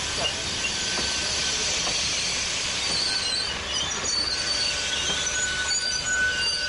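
Train of SNCF passenger coaches rolling past along a platform, its wheels running with a steady rumble, and high-pitched wheel squeals that grow in the second half.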